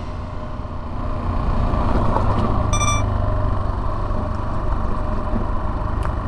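Yamaha Serow 250's air-cooled single-cylinder engine running steadily, getting louder between one and two seconds in. A brief high beep sounds once, about three seconds in.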